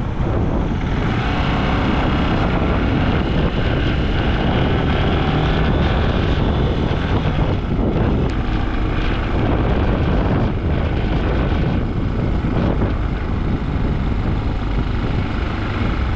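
Gatoma 200 motorcycle being ridden along a road: its engine runs steadily under wind rushing over the microphone.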